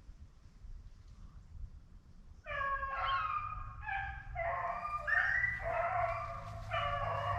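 A pack of rabbit hounds baying together on a running rabbit. The voices break in suddenly about two and a half seconds in and carry on as overlapping howling calls, the sign that the dogs are on the rabbit's trail.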